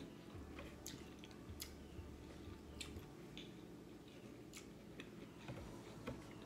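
Quiet close-up chewing of a mouthful of food, with irregular wet mouth clicks and smacks.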